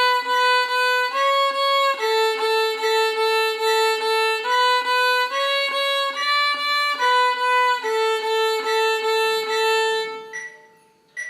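A simple melody in a violin tone, played as short, evenly detached notes that repeat a few pitches. It ends on a long held note that fades out about ten seconds in, and a small click follows near the end.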